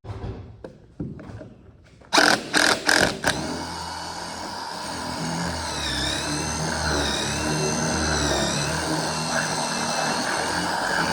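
Power drill with a 3/8-inch bit enlarging bolt holes in a trolling motor mount. A few short bursts on the trigger about two seconds in, then the drill runs steadily, its pitch dipping briefly twice as the bit bites.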